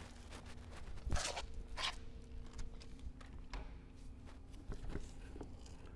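Scattered light knocks, clicks and rustles of hands fitting a drain hose onto an aircraft engine's quick-drain oil valve, over a faint steady hum.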